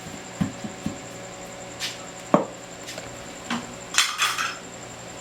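Car speakers being handled and set into a homemade speaker box: a few light knocks, one sharp tap about halfway, and a short rustling scrape near the end.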